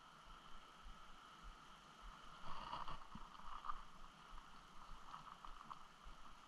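Faint water lapping and gurgling, with clusters of small ticks and splashes a few seconds in.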